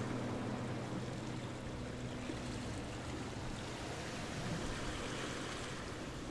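Outro soundtrack ending: a few held low music tones fade out over the first couple of seconds, leaving a steady, even rushing noise.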